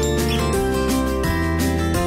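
Instrumental background music, with sustained notes and chords changing every fraction of a second.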